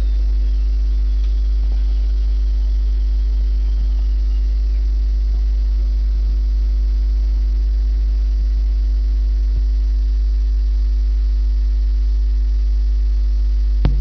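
Steady electrical mains hum: a strong, unchanging low drone with fainter higher tones above it.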